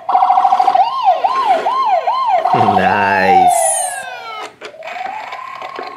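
Toy SWAT armoured truck's electronic siren sound effect: a warbling siren rising and falling about twice a second, a short deeper buzz around the middle, then a long falling wail, and near the end a tone that climbs and holds.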